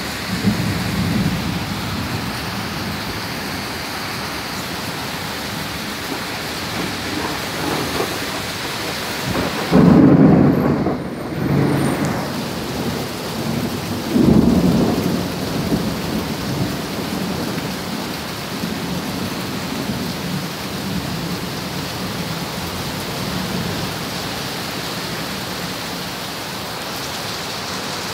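Steady rain with rolling thunder. There is a rumble near the start, the loudest peal about ten seconds in rolling on for a couple of seconds, and another rumble a few seconds after that.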